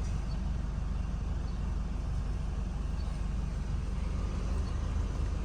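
Chevrolet S10 pickup on the move: a steady low rumble of engine and road noise.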